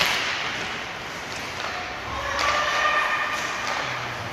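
Ice hockey play on an indoor rink: a sharp crack right at the start as sticks and puck meet at the faceoff, then steady rink noise of skates and sticks on the ice, with a player shouting about two seconds in.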